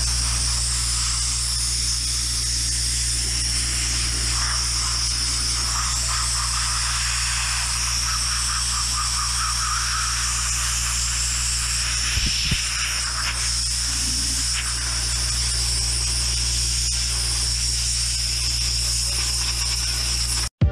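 Small handheld sandblasting gun blasting sand against the rusty steel chassis: a steady high hiss of air and grit, with a steady low hum underneath.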